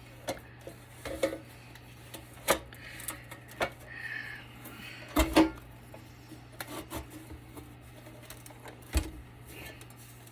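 Scattered clicks and knocks of hand tools and metal parts handled while a battery backup unit's steel case is being taken apart, with the loudest knock about five seconds in.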